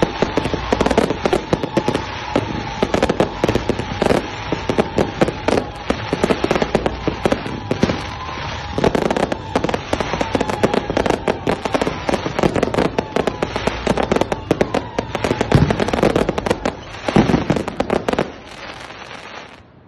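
Fireworks going off in a continuous barrage of dense, rapid crackling and popping, which drops away about two seconds before the end.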